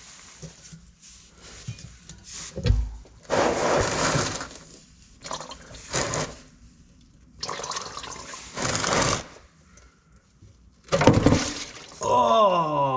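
Automatic transmission fluid gushing and splashing into a plastic drain pan in several bursts as the Lexus IS F's transmission pan is pried loose. Near the end comes a drawn-out, falling voice.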